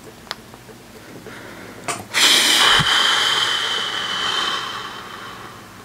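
A sudden hiss about two seconds in, with a thin high tone running through it, fading away over about three seconds; a faint click comes before it.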